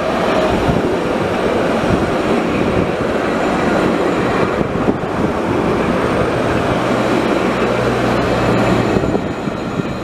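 Alstom Citadis light-rail tram passing close by: a loud, steady running noise of the tram on its rails. A steady low hum joins in about seven seconds in and fades out about two seconds later.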